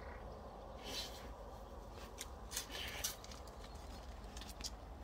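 A dog's paws crunching on gravel: a handful of short, scattered crunches over a faint, steady outdoor background.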